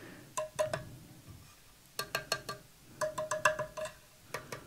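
Steel parts of an AKM rifle handled by hand: several quick groups of light metallic clicks and taps, each with a short ringing tone.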